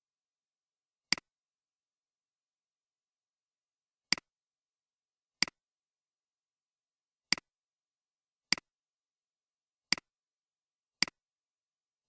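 Computer mouse button clicking: eight single clicks, each a quick press-and-release, spaced irregularly one to three seconds apart over dead silence.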